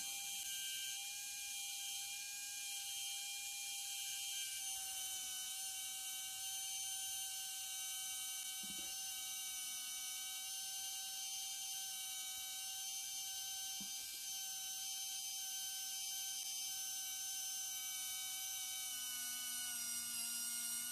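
Small electric motor of an RC truck's motorised lift-axle mechanism running steadily, winding the axle up along its screw thread, a thin even whine. Two faint ticks come partway through.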